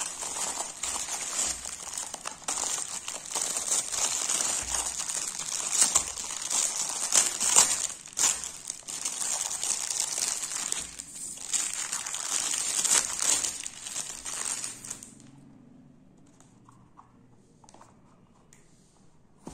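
Plastic packaging crinkling and rustling as it is handled and pulled open: a grey poly mailer bag, then the clear plastic wrap around a stack of plastic measuring cups. The crinkling stops about fifteen seconds in, leaving only faint handling sounds.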